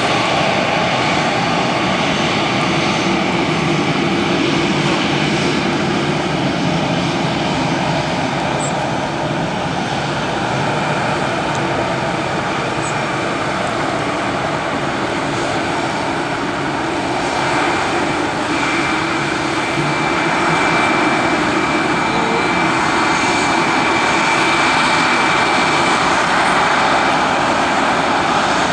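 Jet airliner engines running at taxi power: a steady rush of jet noise with a whine through it. A higher, steady whine joins about two-thirds of the way in.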